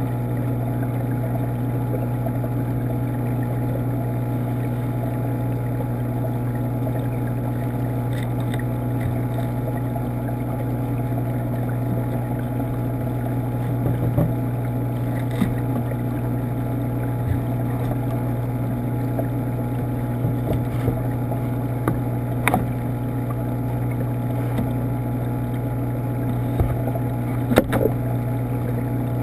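Steady low hum of a saltwater aquarium's pump running, picked up through the tank, with a few faint clicks scattered through it.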